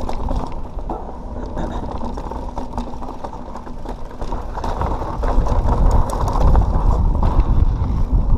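2017 Pivot Switchblade 27.5+ mountain bike ridden over a dirt trail: tyre rumble with the chain and frame clicking and rattling, the rumble growing louder about five seconds in.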